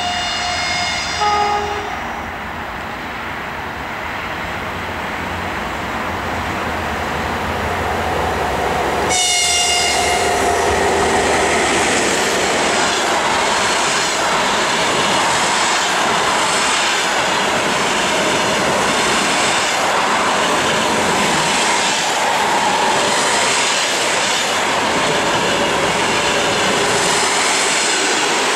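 EP1M electric locomotive sounding a two-note horn as it approaches, and a second short horn note about nine seconds in as it draws level. Then the passenger coaches roll past at speed: a steady rush with the rhythmic clatter of wheels over rail joints.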